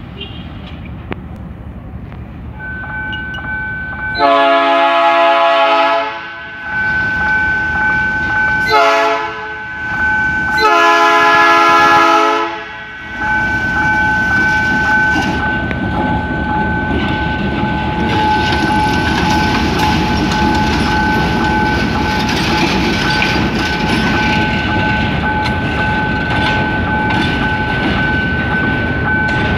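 GE U20C diesel-electric locomotive sounding its horn three times, long, short, long. After that its diesel engine runs as it rolls slowly past with hopper wagons, wheels clattering on the rails. A steady high-pitched tone sounds underneath throughout.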